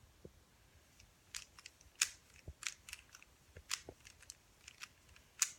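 Rubik's Cube layers being turned by hand: a faint, irregular series of plastic clicks, about a dozen, the loudest near two seconds in and near the end.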